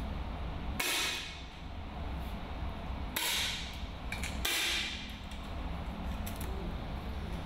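Three 10 m match air rifle shots, about a second in, at about three seconds and at about four and a half seconds, each a sharp pop with a brief ring-out, over a steady low hum.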